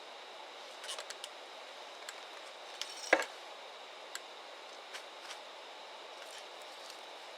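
Wood fire crackling: scattered small snaps and pops over a steady faint hiss, with one sharp loud pop about three seconds in.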